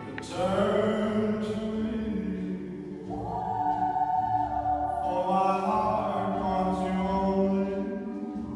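Choral music: voices singing long held notes, moving to new notes about three seconds in and again about five seconds in.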